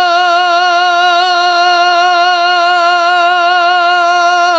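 A singer holding one long sung "o" with a gentle vibrato, in a Bengali folk song.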